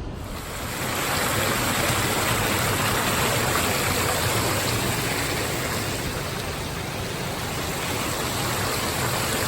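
Sea surf washing onto the shore, a steady rushing noise that swells up about half a second in and holds fairly level.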